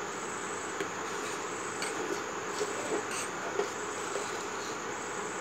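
A steady hiss, with a few faint clinks and scrapes of a metal ladle stirring rice and milk in a steel pot.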